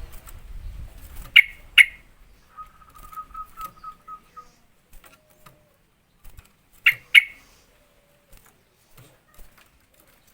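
Sooty-headed bulbul (trucukan) calling: two sharp, loud notes just over a second in and again about seven seconds in, with a short rapid trill of repeated notes between them. A low rumble runs under the first two seconds.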